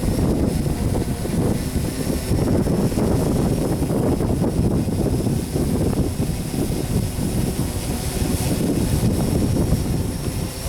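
Strong wind buffeting the microphone in irregular gusts, with a faint, steady high whine from the tricopter's electric motors above it.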